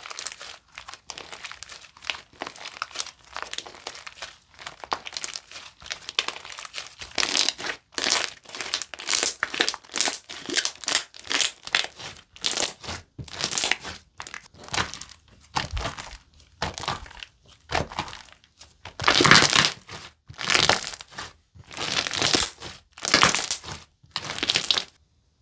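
Slime squeezed and pressed by hand in repeated squishes, each giving a crackly, crinkling burst of popping air pockets, about one a second and loudest in the last few seconds, stopping abruptly near the end.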